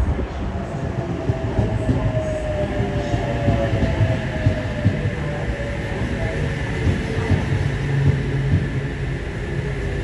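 Sydney Trains H-set (OSCAR) double-deck electric multiple unit running slowly into a platform, with a steady rumble and scattered wheel clicks. A faint whine falls gradually in pitch as the train slows.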